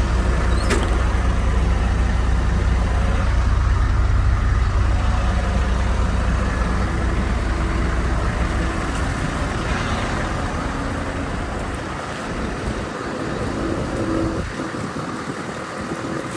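Diesel engine of a Liebherr R914 Compact excavator running with a steady low rumble that weakens from about ten seconds in, with a sharp click about a second in.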